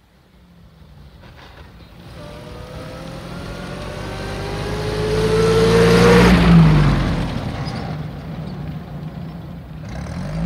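1922 Morris car's 11.9 HP sidevalve Hotchkiss engine driving up and passing by. It grows steadily louder to its closest point about six seconds in, drops in pitch as it passes, then fades into the distance.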